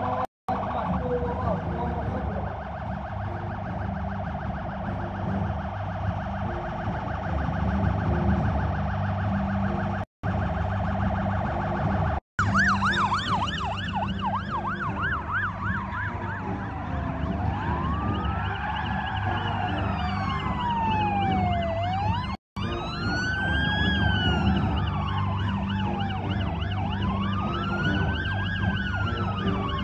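Police car siren over a steady vehicle engine rumble: about 12 seconds in, a fast yelp that turns into a slow wail rising and falling every few seconds. The sound cuts out briefly four times.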